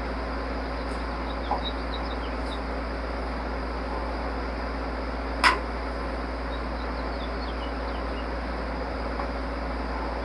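Steady low hum of background machinery, with a small click about a second and a half in and one sharp metallic click near the middle, as of a tool knocking during hand work on the engine. Faint high chirps come and go.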